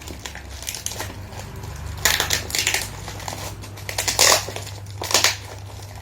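Vape kit packaging being opened by hand: rustling and crinkling, with louder bursts about two seconds in, around four seconds and just after five seconds.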